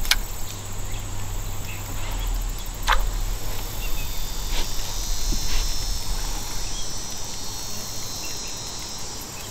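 A steady high chorus of insects buzzing, with a few sharp clicks and a low hum underneath that fades out about seven seconds in.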